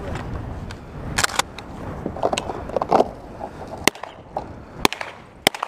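Several sharp cracks and clicks from a firearm, spaced about a second apart in the second half, over a low rumble of wind on the microphone.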